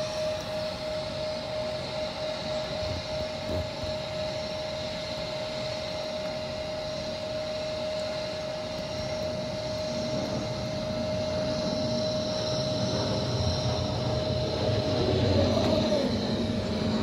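Embraer E175 regional jet's twin turbofans at takeoff power, heard through window glass: a steady engine whine over a low rumble. The rumble grows louder in the later part as the jet climbs overhead, and the whine bends in pitch near the end as it passes.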